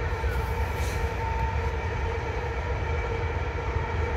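A long train passing close by: a steady low rumble with a steady hum of several held tones over it, unbroken throughout.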